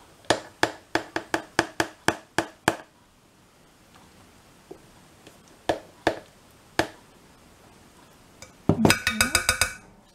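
A spoon tapping repeatedly against a container while shaking out corn starch, about four taps a second for nearly three seconds, then three more taps. Near the end comes a short run of ringing clinks, cutlery knocking on a glass bowl.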